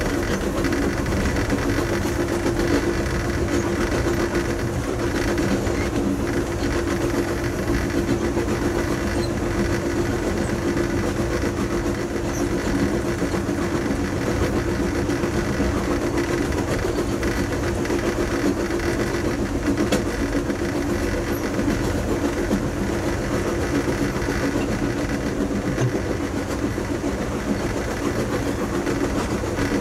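Amtrak Coast Starlight passenger car rolling along at speed, heard from inside the rear car: steady wheel-on-rail running noise with a constant low hum through it.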